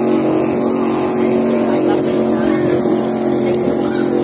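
Racing powerboat engines droning steadily, an even hum of several tones that holds its pitch, over a steady hiss.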